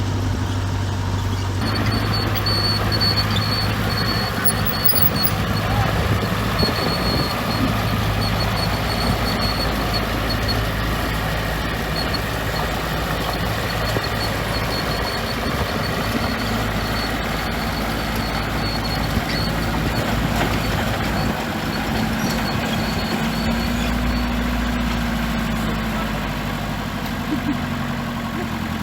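Heavy diesel earthmoving machinery running steadily, with the engine hum of a bulldozer or dump truck under a broad mechanical rumble. A faint high squeak repeats through the first half.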